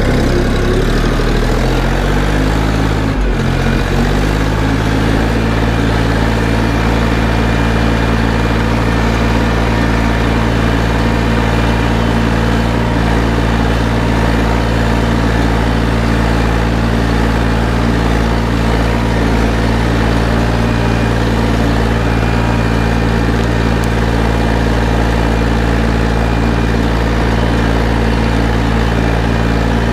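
Mini-tractor engine pulling a two-furrow plough in high first gear. Its pitch climbs over the first few seconds as it takes the load off a heavy start, dips briefly, then runs steadily under heavy pull, with the tractor squatting at a ploughing depth of about 23 cm.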